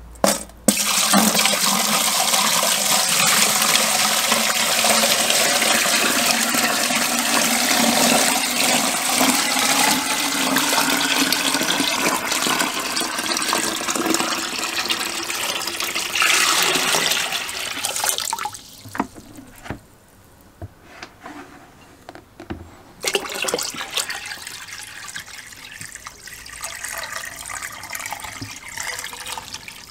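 Water poured from a bucket into a plastic barrel, splashing over a submerged rusty tool and steel anode ring as the electrolysis tank is filled. A long, loud, steady pour stops about eighteen seconds in, a few splashes follow, and a second, quieter pour runs through the last several seconds.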